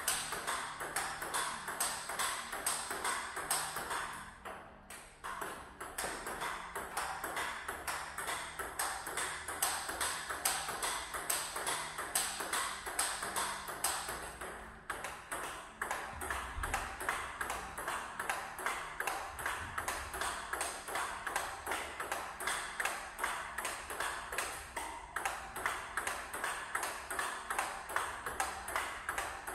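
Table tennis rally: the ball clicks off the bats and bounces on the table in a steady run of sharp ticks, about three a second, with brief breaks about five and fifteen seconds in. One of the bats is a Nittaku Acoustic five-ply wooden blade with unboosted DHS Hurricane 3 NEO rubber.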